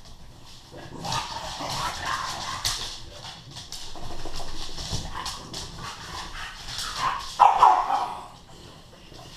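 Bullmastiff and English bulldog play-fighting, with a run of barks and whimpers, loudest about seven and a half seconds in.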